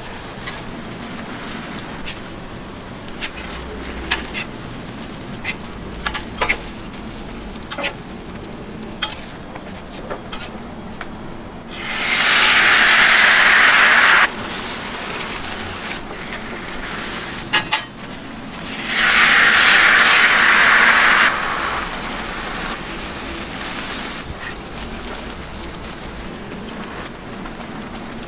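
Beaten egg hitting a hot flat griddle and sizzling loudly, in two bursts of about two seconds each, some twelve and nineteen seconds in. Between them a lower steady sizzle runs on, with scattered light clicks and taps.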